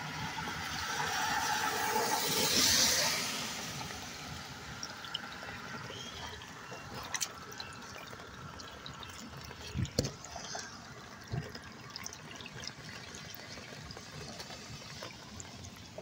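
Standing water swirling and gurgling down a small drain hole at the base of a concrete curb, with scattered drips. A louder rush swells and fades within the first few seconds.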